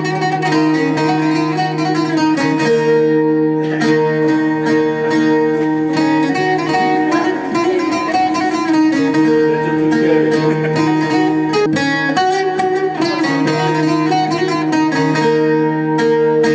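Bağlama (saz) playing an instrumental Turkish folk melody, rapid plucked notes over a steady held low drone.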